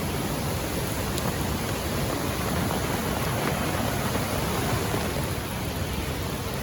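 Flooded river rushing past in a steady, even noise, with rain falling.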